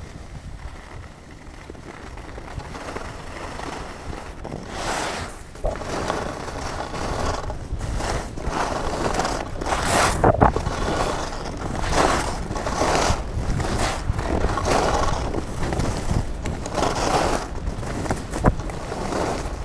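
Skis scraping and carving over groomed snow in a run of turns. Each turn is a surge of hiss about a second long, and the surges grow louder from about five seconds in as speed builds, over a low wind rumble on the microphone.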